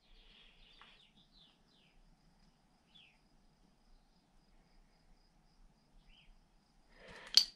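Quiet room tone with a faint hum and a few faint, short high chirps scattered through it, then a brief burst of handling noise near the end.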